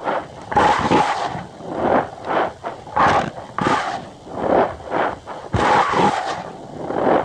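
Cornstarch powder being squeezed and pressed, giving repeated squeaky crunches in an uneven rhythm of roughly two a second.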